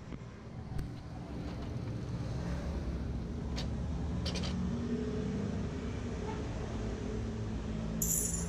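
A steady low rumble, with a few light clicks and taps from the plastic panels and parts of a Canon copier being handled. The sharpest click comes near the end.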